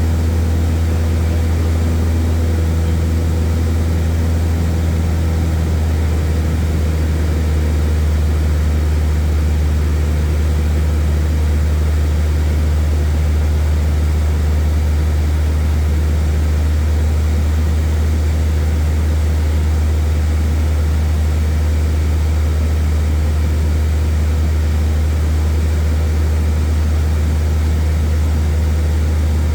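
Airplane engine and propeller running at a steady cruise, a loud, even, low drone, heard from inside the cabin.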